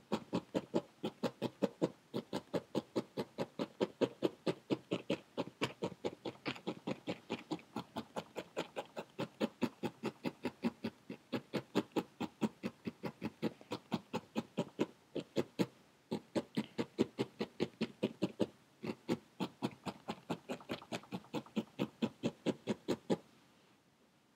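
Felting needle stabbed rapidly and repeatedly into a ball of core wool on a foam pad, about four soft punches a second, compacting the wool; the stabbing stops about a second before the end.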